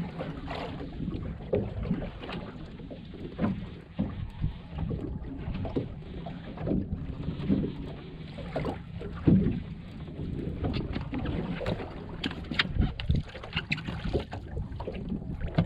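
Wind rushing over the microphone and water slapping against the hull of a small boat, in an uneven series of knocks and thumps.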